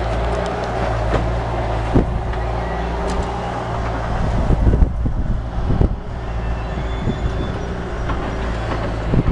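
Skid-steer loader engine running steadily, a low hum, with a few scattered knocks and clunks.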